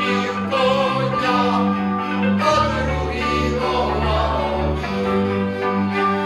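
A Moravian cimbalom band playing a folk song, with violins, cimbalom and double bass, and men's voices singing along.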